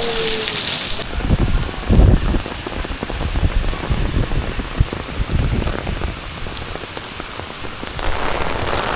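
Heavy rain pouring down, a dense steady hiss. Irregular low rumbles come and go through the first half, and the hiss turns duller about a second in and fuller again near the end.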